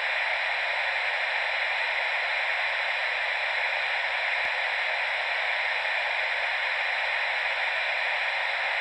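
Steady, unchanging hiss of static.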